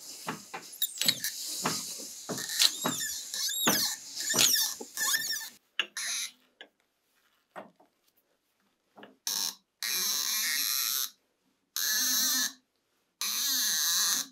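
Metal clicks, knocks and squeaky scraping from handling an old metal lathe's chuck, then three even rasping strokes of about a second each as its chuck key is turned.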